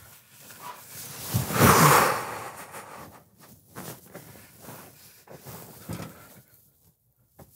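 A loud breathy exhale, like a heavy sigh, about a second and a half in, then soft rustling and a few light knocks and steps as a person walks away.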